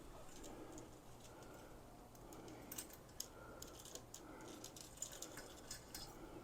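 Near quiet, with faint scattered small clicks and ticks, a few close together about three seconds in and again later.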